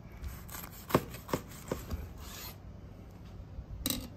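Large kitchen knife sawing through a toasted bun and thick stuffed burger patty on a board, in a few separate scraping strokes, with a sharp click near the end.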